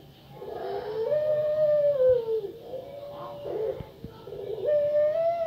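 A female puter pelung, the Indonesian long-cooing variety of domestic collared dove, cooing. There are two long drawn-out coos that rise, hold on one note and then drop off, with a short coo between them; the second starts about four and a half seconds in.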